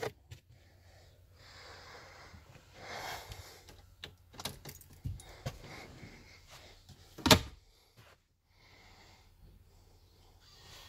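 Quiet rustling and scattered clicks of handling inside a car cabin, with one sharp knock about seven seconds in.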